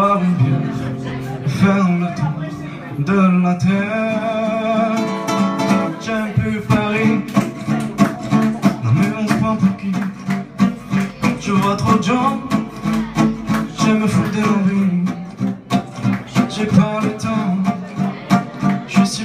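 An acoustic guitar strummed and picked in rhythm, with a man singing over it in held, wavering notes.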